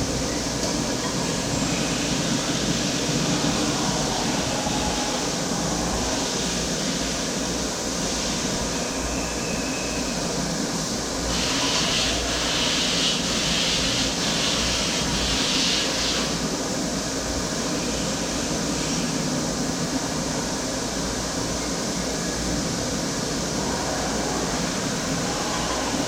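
CNC machine running steadily, with a louder, higher-pitched stretch lasting about five seconds near the middle.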